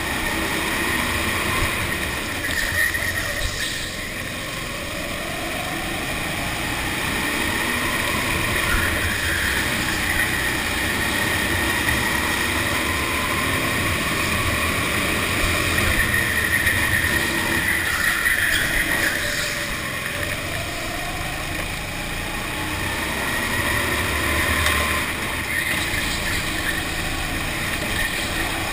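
Go-kart engine running hard on track, heard close up from the kart itself, its pitch climbing twice as the kart accelerates out of corners, over a steady rush of tyre and wind noise.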